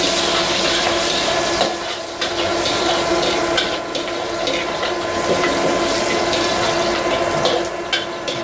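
Ginger and green chillies sizzling in oil in a wok over a gas burner, under a steady hum, with a metal ladle now and then scraping and knocking against the wok as they are sautéed.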